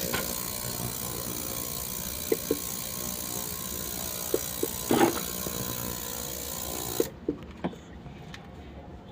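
A loud, steady hiss that cuts off abruptly about seven seconds in, with a handful of small sharp metallic clicks and knocks through it, the loudest about five seconds in.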